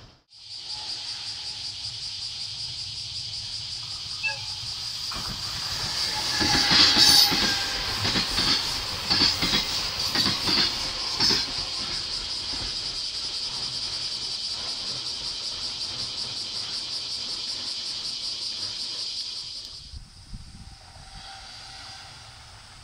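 Freight train of container wagons passing close by: a steady high hiss of rolling wheels, with a run of clickety-clack wheel knocks over rail joints loudest from about six to eleven seconds in. The sound ends abruptly near the end.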